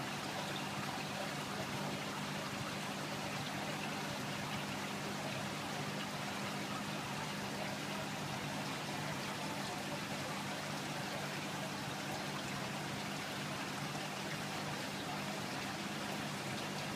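Steady rush and trickle of circulating water in a marine aquarium, with a low, even pump hum underneath.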